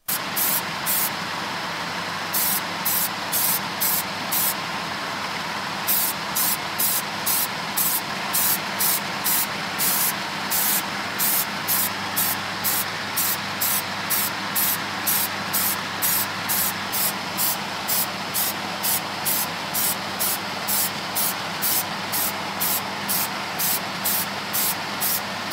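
Aerosol spray can of paint spraying in short bursts, about two a second for most of the time, over the steady hiss and low hum of a spray booth's extraction fan.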